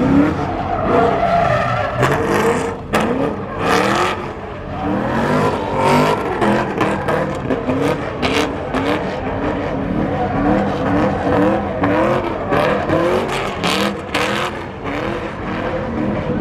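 Car engine revving over and over in short rising strokes while the car does donuts or burnouts, with tires squealing and skidding on the pavement.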